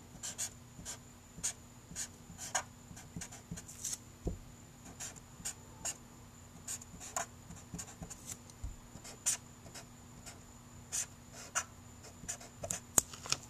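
Blue Expo dry-erase marker scratching on paper in many short, quick strokes, writing characters stroke by stroke.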